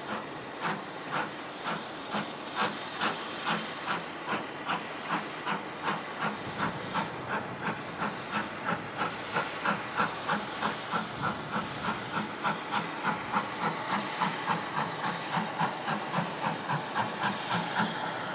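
GER Class Y14 0-6-0 steam locomotive working a train away from a standstill, its exhaust beating evenly at about two to three beats a second, quickening a little and growing louder as it draws nearer. Under the beats runs a steady hiss of steam escaping at the cylinders.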